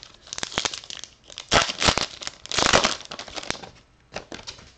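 A baseball-card pack wrapper crinkling and tearing in three main bursts, with smaller crackles near the end, as a pack is torn open and handled.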